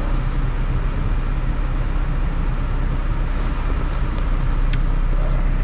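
Car engine idling steadily with a low hum, and one sharp click near the end.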